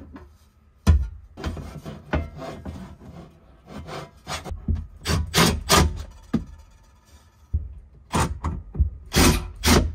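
Black metal cargo-rack side plate knocking and scraping against the Jeep's rear interior trim as it is slid and worked into place, in a string of irregular knocks and rubs. The sharpest knock comes about a second in, with more clustered knocks in the second half.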